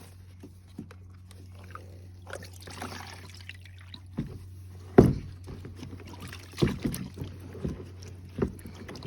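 Irregular knocks and rubbing from vacuum cleaner parts being handled and wiped down with a cloth, the sharpest knock about five seconds in, over a low steady hum.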